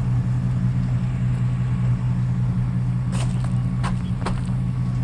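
Steady low drone of a moving vehicle, with a few short clicks about three to four seconds in.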